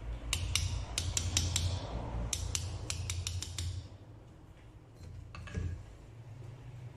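Small hammer tapping on the metal parts of a Peugeot 103 moped engine during reassembly: about a dozen light, sharp taps in two quick runs, then a single duller knock a couple of seconds later.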